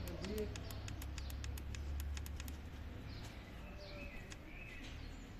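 Birds chirping, over a low steady hum with rapid regular ticking that stops about halfway through.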